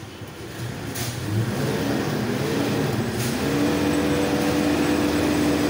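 Forklift engine revving, rising in pitch over about two seconds and then holding a steady high note as the forklift moves a pallet of rice sacks.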